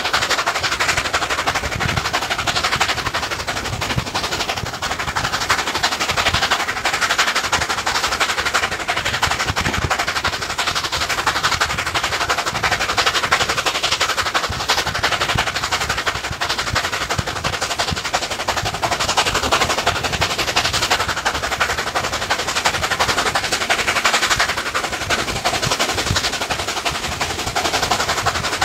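Steam locomotive 3801, a NSW 38 class Pacific, exhausting in fast, continuous beats as it works the train unassisted, heard from an open carriage window. Wheels clattering over the rails run underneath.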